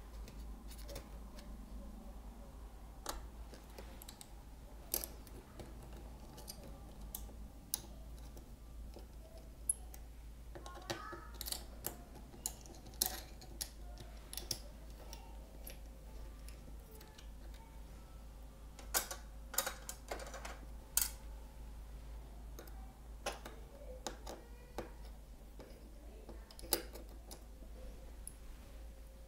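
Scattered small clicks and taps of fingers handling a laptop's internals: the battery and speaker cable connectors being pressed onto the board. A few sharper clicks come close together about two-thirds of the way through, over a faint low hum.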